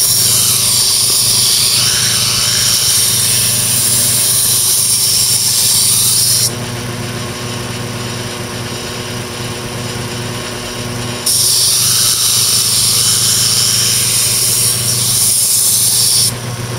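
Electric 1x42 belt grinder running with a steady motor hum while a machete's edge is ground against the moving belt, giving a loud, harsh hiss. The grinding stops about six seconds in as the blade is lifted off, leaving only the motor running, and starts again about five seconds later before stopping just before the end.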